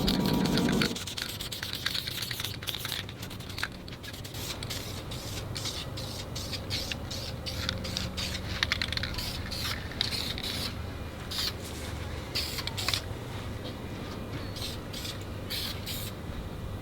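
Scattered light scrapes and clicks from work being handled, over a steady low hum; music cuts off about a second in.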